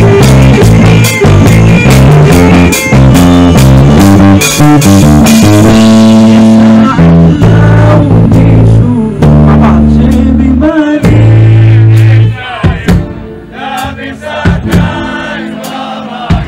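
Live folk-rock band playing with drum kit and electric guitar. The drums stop about six seconds in, leaving long held bass notes under a man's voice, and the music turns quieter from about twelve seconds in.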